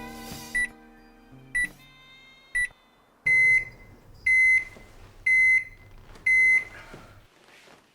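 Microwave oven beeping: short beeps about once a second, then four longer, louder beeps a second apart, the end-of-cycle signal. Under the long beeps runs a low hum that cuts off shortly after the last one.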